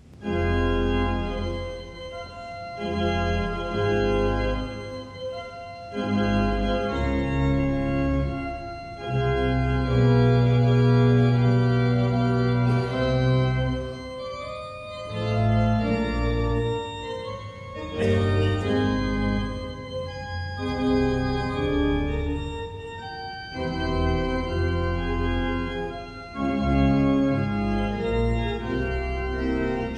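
Church organ playing a slow sequence of sustained chords over deep pedal notes, each chord held for a second or two before moving to the next. It begins suddenly, just after the sung suffrages, ahead of the choir's next entry.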